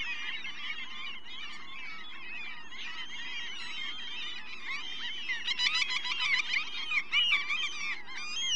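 Dense chorus of many overlapping chirping animal calls, growing louder and quicker from about five and a half seconds in.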